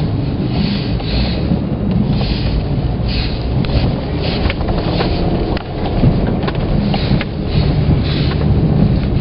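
Hyundai Santa Fe driving over a rough snowy trail, heard from inside the cabin: a steady low rumble of engine and tyres with scattered knocks and rattles.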